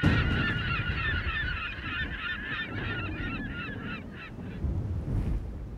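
A large flock of geese honking, many calls overlapping, thinning out and stopping about four and a half seconds in, over a low rumble.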